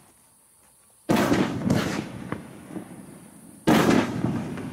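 Nine-shot consumer fireworks cake firing: three sharp booms, about a second in, half a second later and near the end, each trailing off, with a few lighter pops between them.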